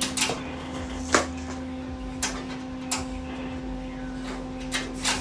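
A few sharp clicks and knocks, a second or so apart, over a steady electrical hum.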